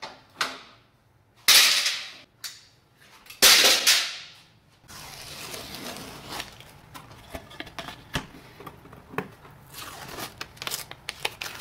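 A couple of light clicks, then blue painter's tape pulled off the roll in two loud tearing rasps, each fading over about half a second, followed by small crackles of tape being stretched and pressed down over a glued walnut panel.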